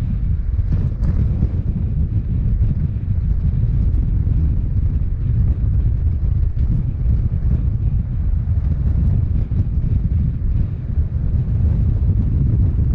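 Wind buffeting the microphone of a roof-mounted action camera on a vehicle driving a dirt road, over the steady low rumble of tyres on gravel and the engine. Faint scattered ticks run through it.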